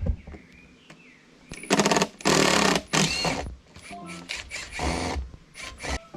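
A power tool running in several short bursts with a fast mechanical rattle, and a sharp knock at the start.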